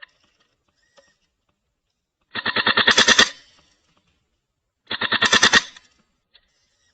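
Airsoft gun firing two short full-auto bursts, a rapid even string of sharp pops at roughly fourteen shots a second, the second burst about two and a half seconds after the first.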